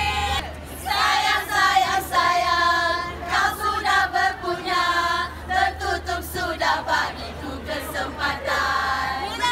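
A group of women singing a song together in chorus. The singing breaks off briefly about half a second in, then carries on.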